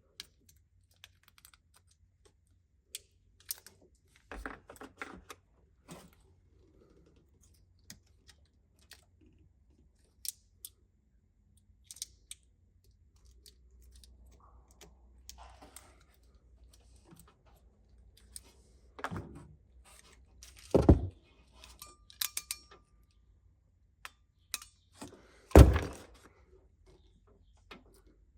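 Scattered small clicks and taps of hand tools and a plastic wiring connector being handled while a burnt ground terminal is worked out of it, with two louder knocks, one about two-thirds of the way through and one near the end.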